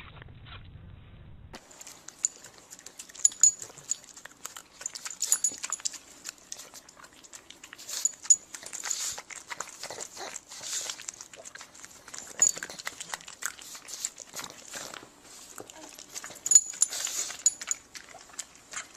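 A puppy's sounds, with many short sharp clicks and taps throughout.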